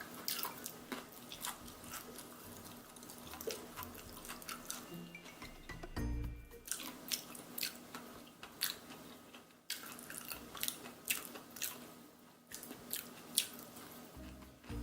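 Crisp crunching and chewing of battered fried chicken drumsticks: irregular sharp crackles of the crust breaking, over soft background music.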